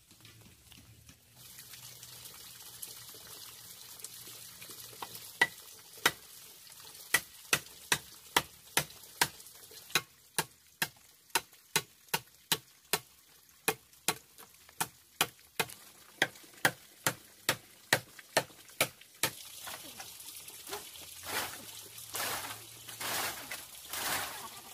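A tool striking wood in steady, sharp blows, about two a second, for some thirteen seconds. Irregular rustling and scraping follows near the end.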